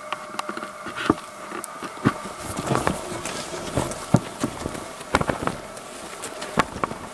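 Footsteps of several people walking briskly over dry grass and dirt: uneven, irregular steps and scuffs. A faint steady hum runs underneath.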